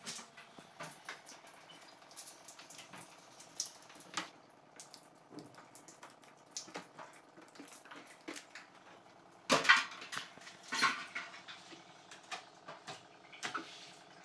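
Scattered clicks, knocks and rustles of plastic tubing, push-fit connectors and a plastic bag being handled while fitting an RO water purifier, loudest around ten seconds in, over a faint steady hum.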